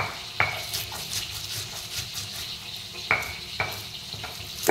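Stone pestle grinding red chilies, shallots and garlic in a stone mortar: a steady gritty scraping and crushing, broken four times by sharp clinks of stone striking stone, two near the start and two about three seconds in.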